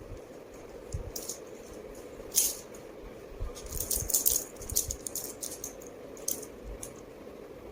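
Irregular light rattling and clinking: a scatter of short, bright rattles and small knocks, the strongest about two and a half seconds in, over a faint steady hum.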